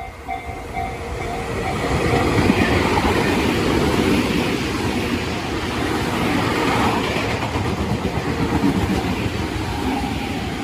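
Tobu Tojo Line electric commuter train passing over a level crossing, its wheels clattering on the rails. It grows louder about two seconds in and stays loud until near the end. The crossing's warning bell rings in a quick repeating tone at the start and is heard again as the train noise eases.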